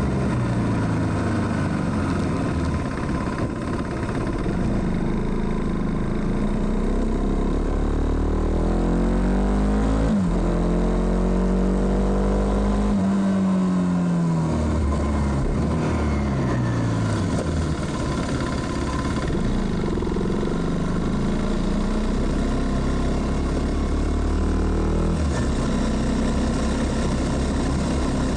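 KTM Duke 390's single-cylinder engine pulling under way, its pitch climbing and dropping several times with abrupt steps as it is shifted through the gears.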